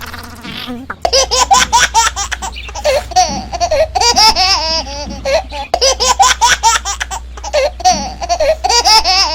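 High-pitched giggling laughter, a quick run of laughing calls starting about a second in that plays again just under six seconds in, over a steady low hum.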